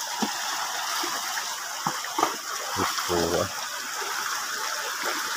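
Muddy stream water running steadily, with short splashes as a bamboo-framed hand net is swept and scooped through the shallow current. A brief vocal sound comes a little after three seconds in.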